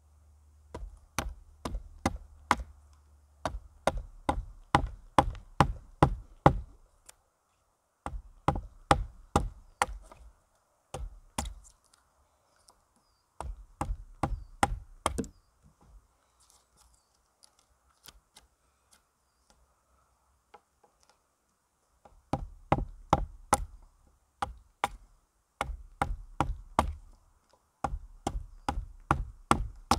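Wood chisel struck with a wooden mallet, chopping out a notch in a pole: runs of sharp knocks about three a second, stopping for several seconds in the middle before starting again.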